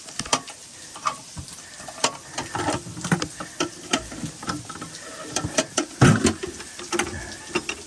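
Rustling with irregular sharp clicks and knocks as an old box is opened and its contents are handled, loudest about six seconds in.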